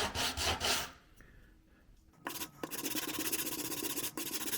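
Hand scraping and sanding of a small wooden model-railroad side sill to clean dried glue off it: back-and-forth strokes, about four a second, stop about a second in. A faster, finer rasping starts a little over two seconds in.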